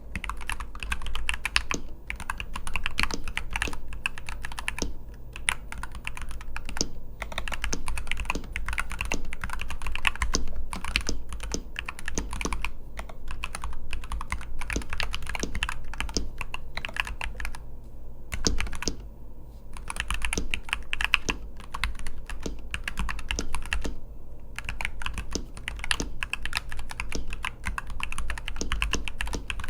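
Typing on a NuPhy Halo75 mechanical keyboard with Gateron G-Pro 2.0 Red linear switches: a continuous run of rapid keystrokes, broken by a few brief pauses.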